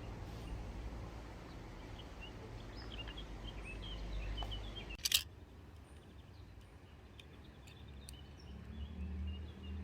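Outdoor ambience: small birds chirping over a low rumble, broken by a sharp click about five seconds in, after which it goes quieter; a low hum builds near the end.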